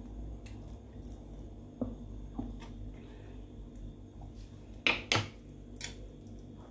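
Soft kitchen handling sounds: a plastic squeeze bottle of sauce squeezed onto flatbread, with a few faint knocks, then two sharp clicks close together about five seconds in as the bottle is handled and set back on the counter.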